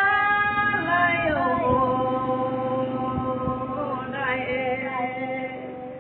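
Two Red Dao women singing a lượn folk song unaccompanied, in long held notes that slide between pitches, trailing off near the end.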